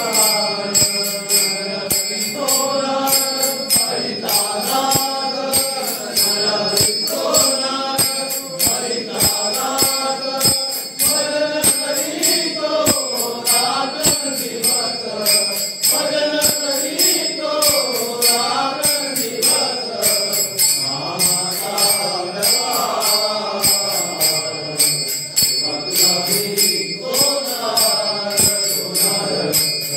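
A group of men singing a devotional song in chorus, with small hand cymbals struck in a steady beat, about two strikes a second, ringing over the voices.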